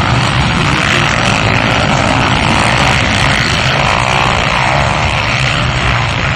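A pack of racing quad bikes (ATVs) running hard together, many engines at high revs blending into one loud, steady drone.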